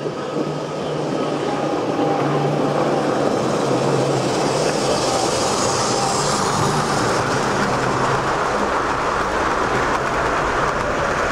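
Ace Trains O gauge tinplate model trains running on metal track: a steady rumble and clatter of wheels and motors, growing louder over the first two seconds as a train of coaches comes by on the near line.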